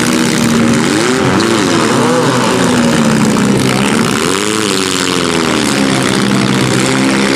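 Engines of several small demolition derby cars running and revving, their pitch rising and falling over and over above a dense, steady din.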